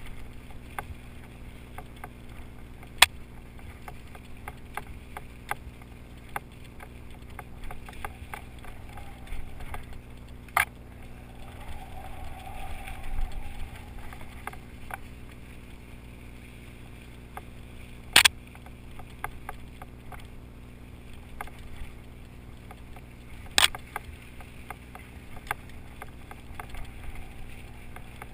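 Mountain bike ridden over a rough forest trail: a steady low rumble with frequent small clicks and rattles, and four loud sharp knocks spread through.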